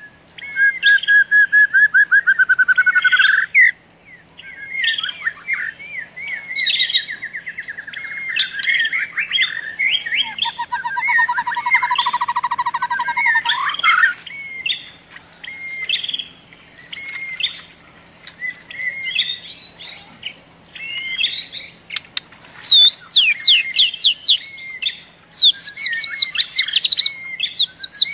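Several birds singing and chirping at once, with rapid trills, repeated chirp series and whistled phrases, busiest in the second half. A faint steady high tone runs underneath.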